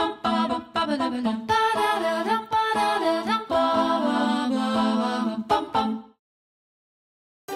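Intro music with a melodic, voice-like lead that cuts off suddenly about six seconds in, followed by silence.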